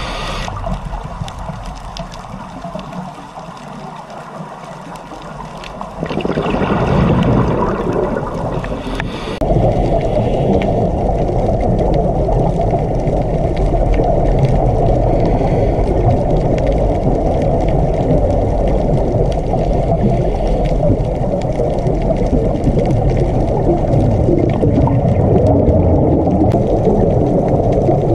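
Muffled underwater noise heard through a camera's waterproof housing: a steady low rushing with little high sound. It steps louder about six seconds in and again about nine seconds in, then holds steady.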